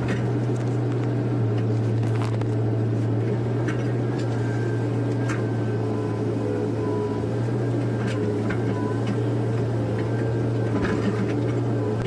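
Komatsu PC130F excavator's diesel engine running steadily under digging load, a constant low drone heard from inside the cab. Thin hydraulic whines come and go as the arm and bucket work, with a few faint knocks.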